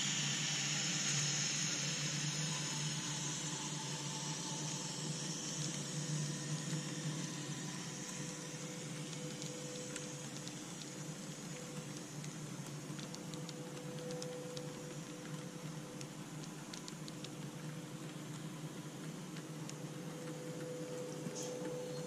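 Model railway train rolling past on track laid without cork underlay: a quiet, steady rolling hiss with a low hum, fading slowly as the train passes, with faint scattered clicks.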